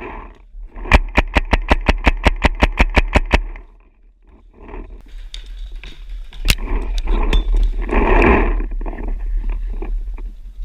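Tippmann A5 paintball marker firing a fast string of about sixteen shots, roughly seven a second, for about two and a half seconds, followed by a few more single shots.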